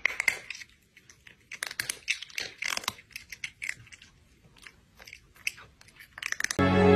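A cat chewing noisily: irregular runs of sharp clicks, with short pauses about a second in and again about four seconds in.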